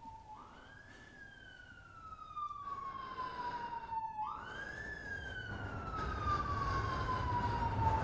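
Emergency vehicle siren wailing. Each cycle rises quickly and then slides slowly down over about four seconds, twice over, and the siren gets louder throughout. A low rumble swells beneath it in the second half.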